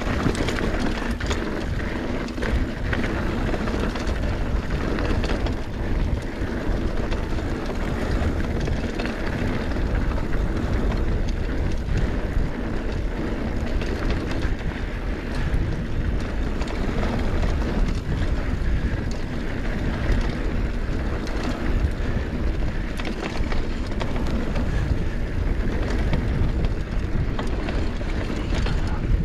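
Mountain bike ridden fast down a dirt singletrack: steady rush of wind buffeting the microphone, with tyres running on dirt and many quick rattles and clicks from the bike over bumps.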